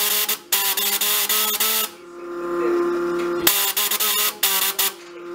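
CNC dot pin marking machine's stylus rapidly hammering dots into a metal hex component, a dense buzzing rattle. It marks in two stretches, stopping for about a second and a half after two seconds and again near the end, and a steady machine hum is left in the pauses.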